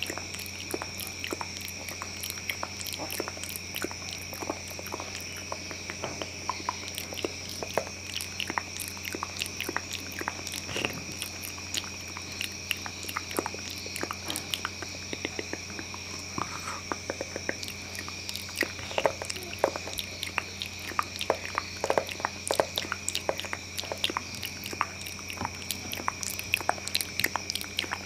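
Close-up ASMR mouth sounds: rapid wet clicks and smacks like biting and chewing, growing denser and louder in the second half, over a faint steady hum.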